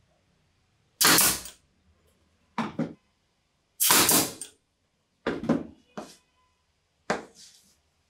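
Pneumatic brad nailer firing six times, roughly a second apart, driving nails through a glued wooden strip into a plywood block. Each shot is a sharp crack that trails off within about half a second.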